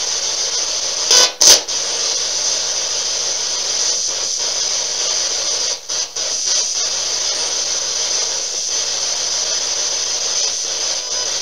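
Spirit box sweeping through radio stations: a steady loud static hiss, with two short sharp blips about a second and a half in and brief dropouts around six seconds in.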